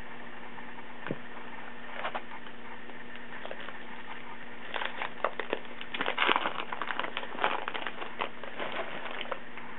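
Baseball card pack wrapper and cards being handled: crinkling and rustling in small scattered crackles, sparse at first and thickening about halfway through.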